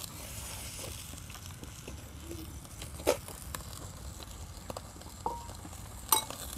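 Spoons clinking against ceramic bowls during a meal: scattered light clicks over a steady low background, with a sharper clink about three seconds in and a louder, briefly ringing clink near the end.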